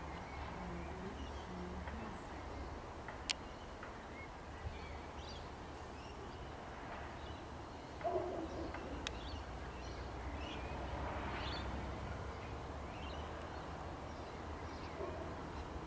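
Outdoor ambience of birds calling now and then over a low, steady rumble, with a louder call about eight seconds in. Two sharp clicks stand out, one about three seconds in and one about nine seconds in.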